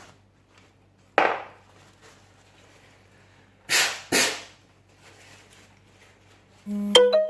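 Three short rushing scrapes: one about a second in and two close together around four seconds, from hand work on the lock. Near the end a chiming electronic tune of a few held notes starts up.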